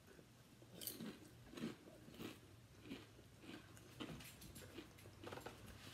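Two people chewing potato chips: faint, crisp crunches coming roughly every half second, starting about a second in.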